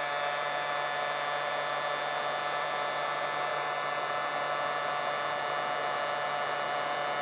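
Hot-air heat gun running steadily, a constant fan whine over a hiss with no change in speed, heating the painted face of a gypsum board.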